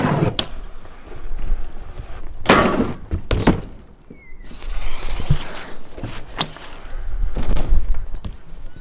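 BMX bike riding on skatepark ramps: several sharp knocks and thuds as the wheels land and strike the ramp edges and coping, with rolling tyre noise between them.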